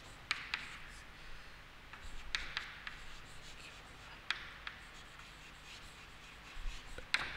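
Chalk writing on a chalkboard: short sharp taps and scratches as each letter is stroked on, with pauses in between.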